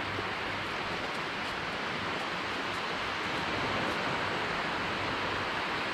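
Steady rushing hiss of surf breaking along a flat sandy beach.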